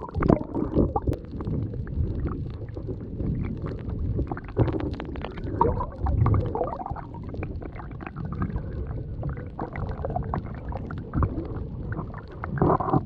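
Muffled underwater sound from an action camera held below the water's surface: low rumbling and gurgling water with scattered small clicks.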